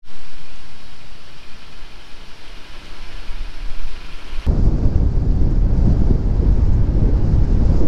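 Wind buffeting the microphone: a loud, ragged low rumble that sets in abruptly about four and a half seconds in, after a steadier, quieter hiss.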